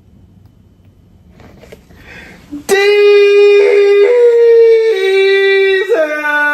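Sung music: long held 'ahh'-like notes that step up and down between a few pitches, coming in suddenly and loud almost three seconds in after a quiet start.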